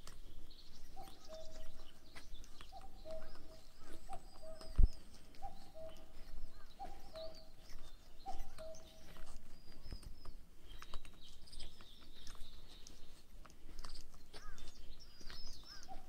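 Mountain forest birds singing: one bird repeats a low two-note call, a higher note dropping to a lower one, about once a second for the first nine seconds, over chirps and trills higher up. Footsteps on a dirt trail, and a single loud thump about five seconds in.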